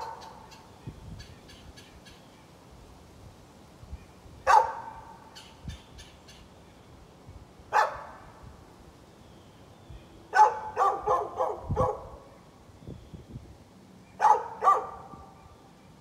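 Dog barking in short spells with quiet gaps between: a single bark about four seconds in, another a few seconds later, a quick run of about five barks just past the middle, and a pair near the end.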